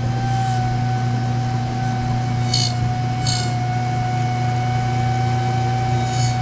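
Homemade mini siren, a small old hovercraft motor spinning a chopper against a hand-made stator, running at full speed with a steady high-pitched whine over a low hum. A few brief scratching rasps come about two and a half and three and a quarter seconds in.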